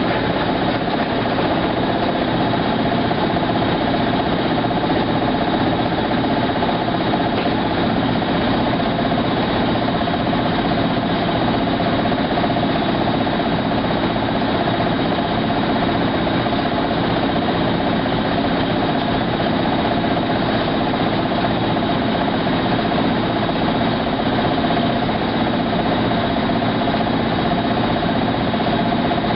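Maytag SoftMount commercial washer running with a steady, unbroken mechanical hum, several steady tones riding over it.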